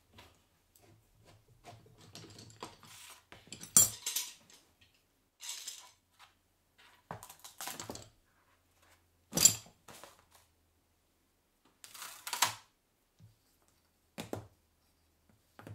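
Hand-tool handling sounds: plastic spring clamps being unclamped from a glued wooden block and set down, and the block being handled on a plastic sheet and cutting mat. The sound is a series of sharp clacks and knocks, the loudest a little after the middle, with rustling between them.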